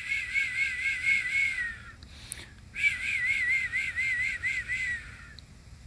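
Two warbling, whistle-like phrases, each about two seconds long, with a pause of about a second between them.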